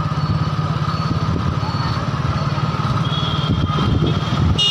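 Motor vehicle engine running steadily as it travels along the road, a dense low rumble. A short high-pitched tone sounds a little after three seconds and another briefly near the end.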